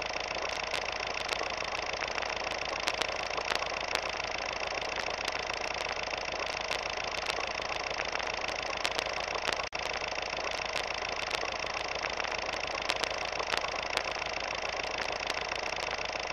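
Vintage film-projector sound effect: a steady mechanical whirring hum with scattered clicks and crackles. It drops out for an instant about ten seconds in.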